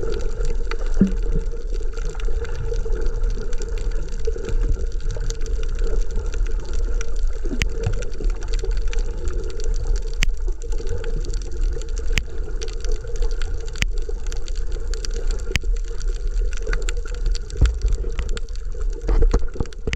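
Underwater sound through a GoPro's waterproof housing: a steady low water rumble and hum, with scattered sharp clicks every second or two.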